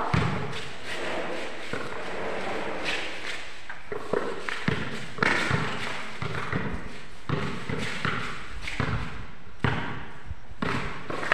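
Basketball bouncing on a concrete court: irregularly spaced single thumps, roughly one every second or two.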